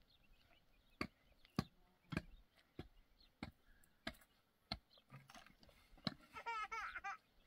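Repeated sharp knocks of a tool striking on the ground, about one every 0.6 seconds for the first five seconds. A short wavering high-pitched cry follows near the end.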